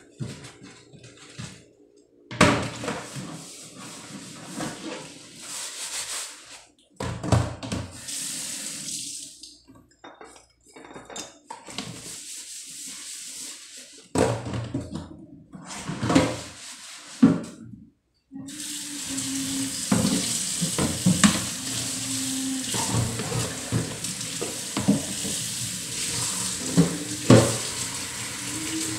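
Hand-washing dishes at a stainless steel kitchen sink: tap water runs in short spurts, then steadily from about two-thirds of the way through, with knocks and clatter of utensils and dishes.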